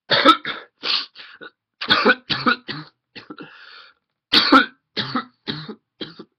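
A person's coughing fit: bouts of hard, rapid coughs one after another, with a breath drawn between them a little past halfway. It is the persistent cough that has kept the person coughing for days.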